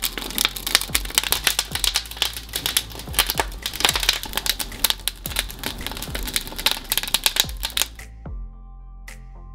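Wood fire in an open metal barbecue grill (mangal) crackling and popping with dense, irregular sharp snaps. About eight seconds in it cuts to soft background music with steady held notes.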